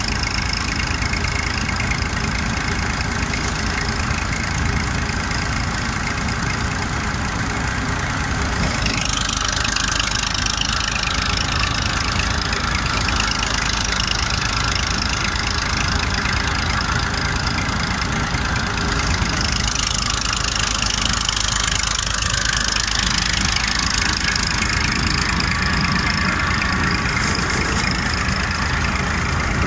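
Massey Ferguson diesel tractor engine running steadily, driving a paddy thresher through its power take-off, with the thresher's rushing clatter of straw and grain over the engine. The rushing grows louder about nine seconds in and again near twenty seconds.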